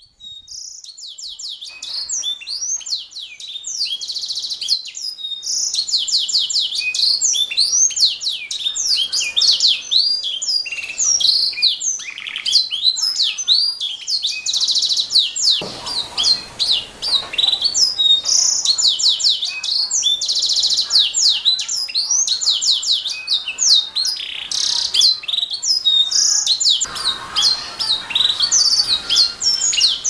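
Domestic canary singing a long, continuous song of rapid high-pitched trills and rolled phrases. It starts right at the beginning and quickly builds to full volume.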